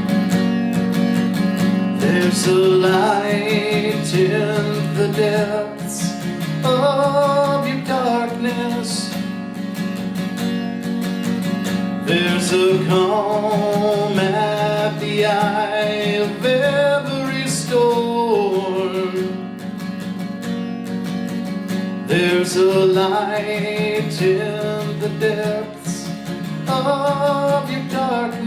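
Music: an acoustic guitar strummed steadily under a singing voice that comes in three sung phrases, with the guitar alone in the gaps between them.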